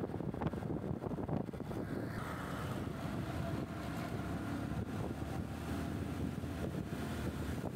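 Motorcycle riding at speed on a highway: wind rushing over the microphone with the bike's engine running underneath, a steady low rumble.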